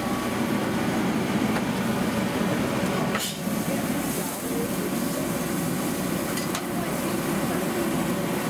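Steady kitchen noise in a food truck: the exhaust hood running and a patty sizzling on a charbroiler. A sharp clatter comes about three seconds in and a lighter click about six and a half seconds in.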